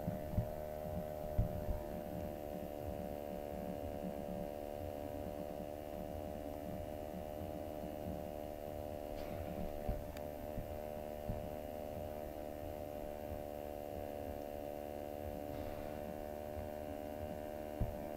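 Steady electrical hum: a constant buzz of many evenly spaced tones. A few low thumps come near the start and a couple of faint clicks around the middle.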